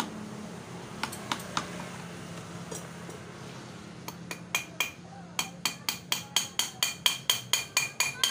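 Ratchet wrench clicking as the engine is worked on: a few scattered sharp clicks, then from about five seconds in a steady run of about four ringing metallic clicks a second.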